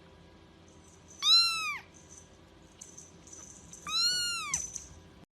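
Domestic cat meowing twice, two calls of about half a second each that rise and then fall in pitch.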